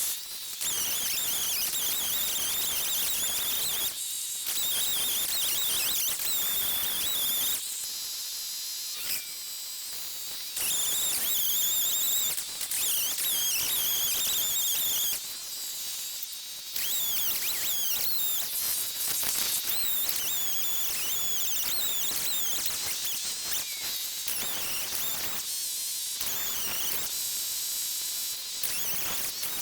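Two-stroke chainsaw cutting pine wood, its high whine rising and dipping as the chain takes load, with several brief drops in level where the throttle eases off.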